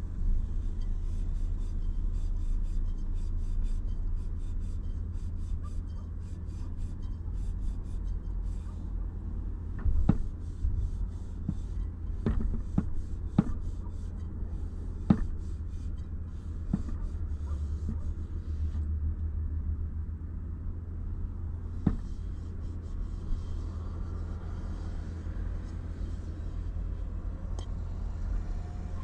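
Steady low rumble inside a car, with a few sharp clicks and taps from a bowl being handled while eating. A fast, faint high ticking comes and goes in stretches.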